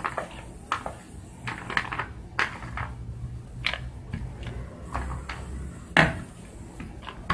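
Rolling pin rolling out a stuffed flatbread dough on a plastic sheet: irregular taps and knocks as the pin goes back and forth, with one sharper knock about six seconds in.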